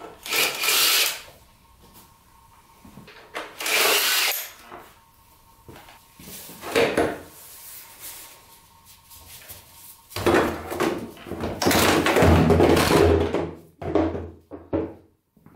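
Workshop noise from stripping a dirt bike's plastic bodywork: three short bursts of rattling and scraping, then a longer, louder stretch of clatter about ten seconds in.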